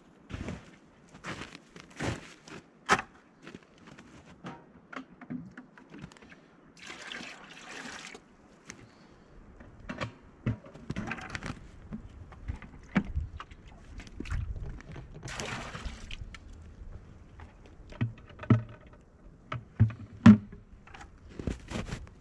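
Footsteps in snow and the clunks of plastic buckets and lids, with maple sap poured from a tree-tap collection bucket into a plastic pail.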